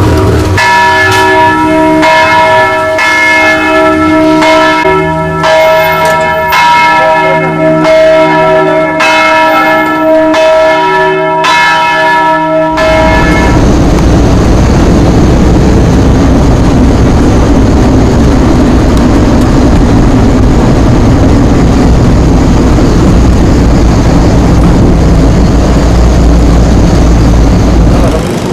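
Church bells pealing, many overlapping strikes with long ringing tones, cut off suddenly about 13 seconds in. Then a steady loud rumble of a car driving, road and engine noise heard from inside the car.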